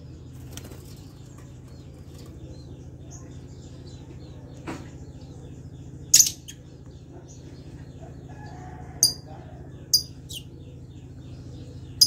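Caged lovebirds giving short, shrill chirps: one sharp call about halfway through and several more near the end, over a faint quick chatter of about three notes a second and a steady low hum.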